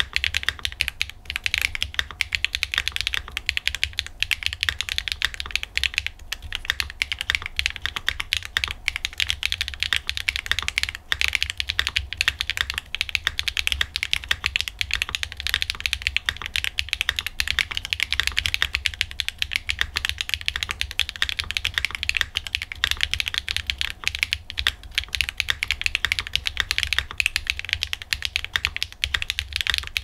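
Steady, fast typing on a Tech Bear TB8 TKL mechanical keyboard: HMX Swift switches under Linworks ABS keycaps, in an aluminium-plate, tadpole-gasket-mounted case with a 1.6 mm non-flex PCB and no case foam. A dense, even stream of key strokes.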